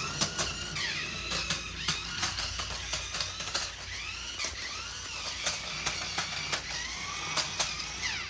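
Small electric motors of a toy transforming RC car whining, the pitch rising and falling over and over as the car is driven, with many sharp clicks and knocks.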